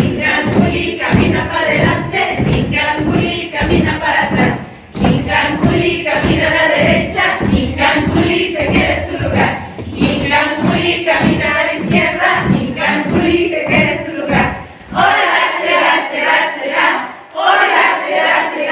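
A group of young people chanting a campfire song in unison over a steady beat of low thumps. About 15 seconds in the thumps stop and the voices carry on alone.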